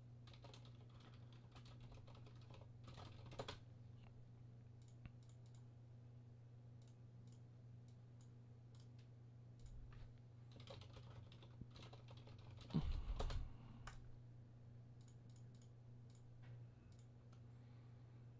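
Faint computer keyboard typing and mouse clicks, scattered single keystrokes over a steady low hum, with one louder bump about two-thirds of the way through.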